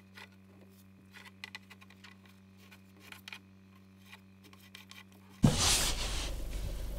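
Faint scattered rubbing and small clicks of hand work in a fibreglass boat hull, over a steady low hum. About five seconds in, a sudden knock gives way to a much louder steady noise.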